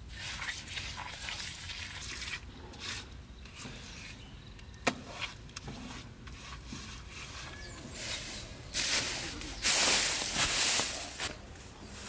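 Hands rubbing and smoothing wet cement mortar: a run of short wet scrapes, with one sharp click about five seconds in. A louder, noisier stretch of scraping lasts about two seconds near the end.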